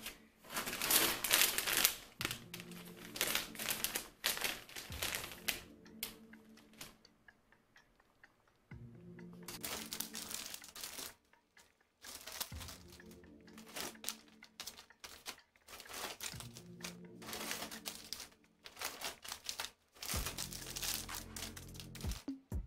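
Clear plastic bags crinkling in repeated bursts as hair bundles are handled and sorted, over soft background music.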